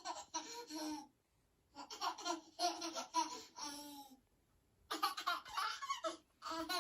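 A person laughing in three bursts of rapid, breathy, pitched pulses.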